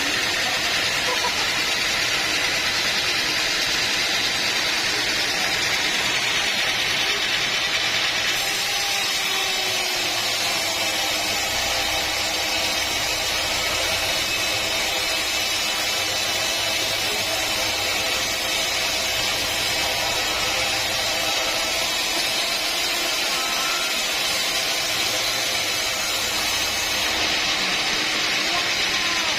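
Sawmill machinery running steadily: a continuous, loud mechanical noise with a low hum underneath for much of the time.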